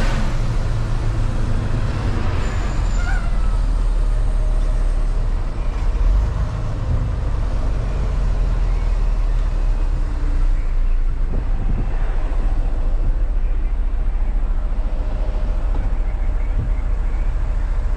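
Semi truck's diesel engine running steadily with a low rumble while the truck moves slowly through the yard.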